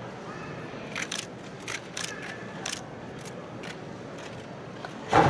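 Karate uniforms snapping in short, crisp pops, about five in the first three seconds, as three karateka perform kata techniques in unison, over the steady murmur of a large arena crowd. Near the end comes one much louder sharp hit.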